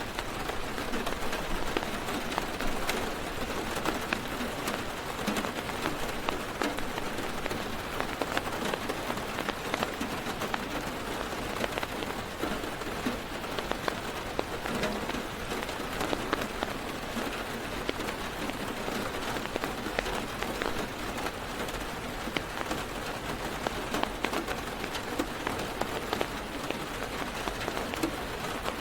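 Heavy rain on a parked car's roof and windows, heard from inside the car: a steady dense patter with many individual drop ticks.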